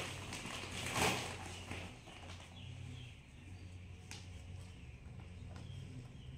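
Faint rustling and a few soft taps as a toddler handles and lies on a plastic-wrapped diaper pack, with a louder rustle about a second in, over a low steady hum.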